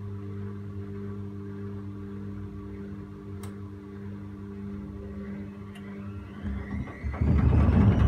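Gorenje front-loading washing machine humming steadily as the drum turns, with two faint clicks. About six and a half seconds in, the motor's whine starts rising as the drum speeds up into the spin, and a loud rumbling and knocking from the drum follows about a second later.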